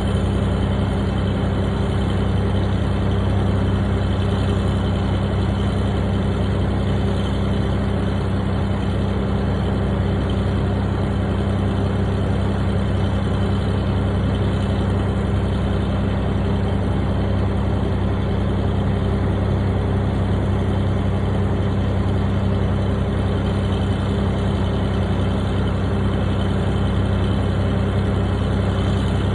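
Engine of a piece of construction equipment idling with a steady, unchanging hum.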